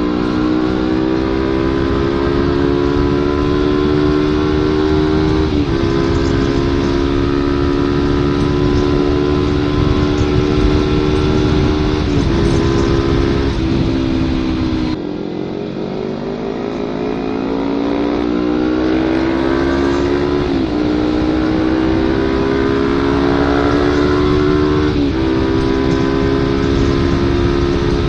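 Kawasaki Ninja 250 FI parallel-twin engine with a CLD header and Prospeed Black Series silencer, running under way at a fairly steady engine speed with brief gear changes. About halfway through it drops in level and pitch, then climbs gradually in pitch, with a shift down in pitch twice as it accelerates through the gears.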